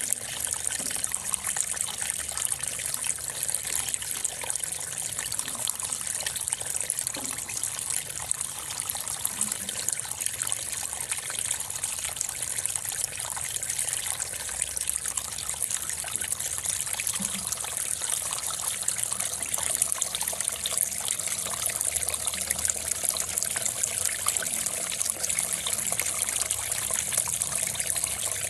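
A steady high hiss with no breaks, of the kind made by trickling water.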